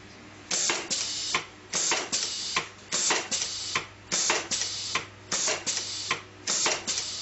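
TM 300 plastic-fastener tagging machine cycling repeatedly at its fast setting: a run of short mechanical bursts, about two to three a second, starting about half a second in, over a steady low hum.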